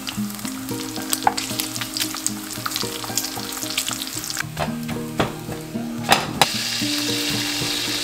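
Bacon frying in a pan, the fat crackling and popping with many small sharp pops, and metal tongs turning the strips. There are a couple of sharp knocks about six seconds in. After that the sizzle becomes a louder, steadier hiss.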